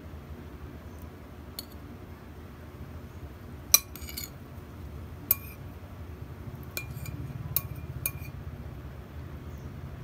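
Metal spoon clinking against a ceramic bowl and plate while serving scrambled egg: about seven sharp, ringing clinks, the loudest about four seconds in, over a low steady hum.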